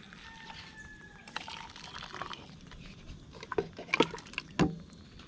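Hot bush tea poured from a plastic cup into a ceramic mug, a steady splashing pour. About three and a half seconds in come a few sharp knocks as the cup is dipped into a steel pot of tea.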